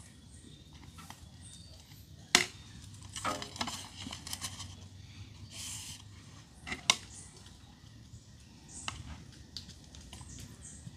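Clinks and knocks of dishes and serving utensils as food is plated, with one sharp knock about two and a half seconds in, a short rattle just after, and another sharp knock near seven seconds.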